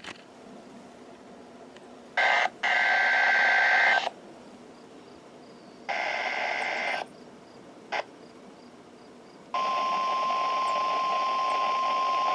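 NOAA Weather Radio weekly test signals over a radio receiver: buzzing two-tone SAME header data bursts about two and six seconds in, with a brief blip near eight seconds. Then, about nine and a half seconds in, the steady single-pitch 1050 Hz warning alarm tone starts and holds.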